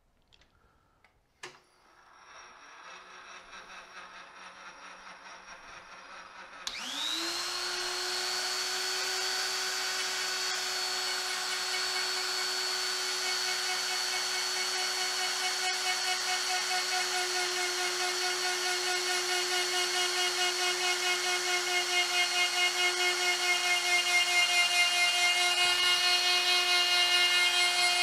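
A lathe clicks on about a second and a half in and its motor hum builds up. About 7 s in, a Hercules electric die grinder used as a tool post grinder spins up with a quick rising whine and settles into a steady high whine. It is grinding the point of a dull center punch turning in the lathe chuck, and the sound grows louder with a slight pulsing toward the end.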